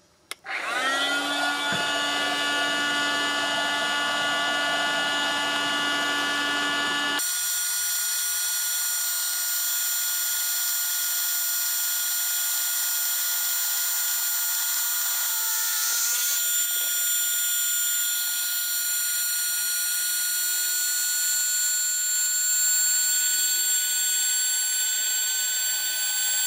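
Parkside PKA 20-Li A1 cordless inflator's blower fan motor spinning up and running steadily, inflating a large air mattress. About seven seconds in the sound changes abruptly to a higher, steady whine.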